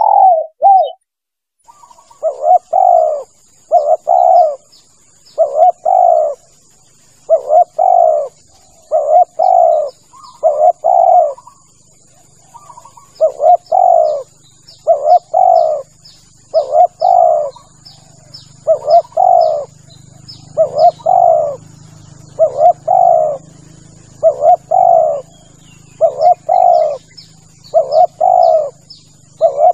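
Spotted dove (tekukur) cooing, played as a lure call: loud repeated coo phrases of a few notes each, about one every two seconds, with a short break near the start and another around the middle. A steady high-pitched tone and faint quick chirps sound in the background.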